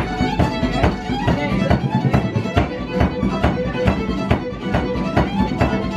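Fiddle playing a tune over a steady beat about twice a second.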